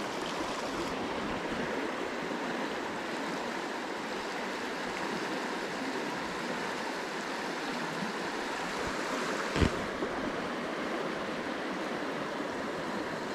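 Shallow stream running over a rocky riffle: a steady rush of water. One brief knock about two-thirds of the way in.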